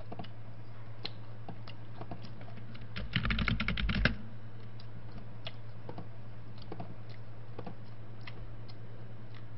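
Computer keyboard typing: a quick run of keystrokes about three seconds in, lasting about a second, with single key clicks scattered before and after.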